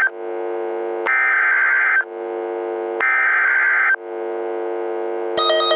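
Emergency Alert System end-of-message (SAME) data bursts: harsh buzzing digital tones about a second long, a second apart, heard as the end of one burst and then two more, over a steady low electronic drone. Near the end a new warbling electronic alarm tone starts.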